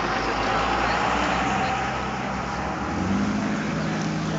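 Steady outdoor traffic noise, with a low, steady engine-like hum coming in about three seconds in.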